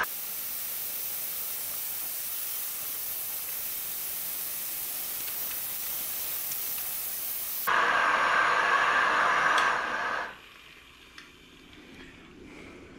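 Gas canister stove burner heating a pot of water. A steady, high hiss runs for most of the first eight seconds, then the fuller burner roar lasts about two seconds and stops abruptly about ten seconds in when the gas is shut off, leaving a faint low sound.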